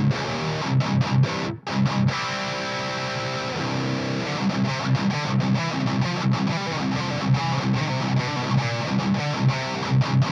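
Heavily distorted electric guitar in drop C, a Washburn Solar with Solar pickups played through a Splawn Quickrod 100 amp: a riff of short, choppy chords, with a brief break about one and a half seconds in and a chord left ringing for about a second and a half just after.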